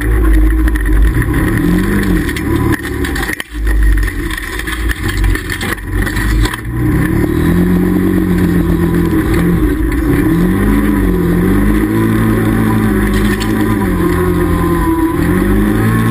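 Can-Am Commander side-by-side's V-twin engine running under way, its pitch rising and falling again and again as the throttle goes on and off, over a steady low rumble. The sound briefly drops away about three and a half seconds in.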